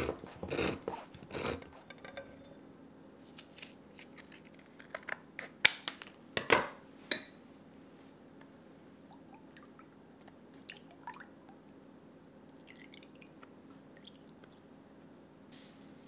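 Kitchen handling sounds: a hand-held can opener clicks and grinds around the lid of a tin can at the start, then come scattered clicks and two sharp knocks about a second apart, the loudest sounds. Near the end, dry bouillon granules hiss as they pour from a tin into a small glass bowl.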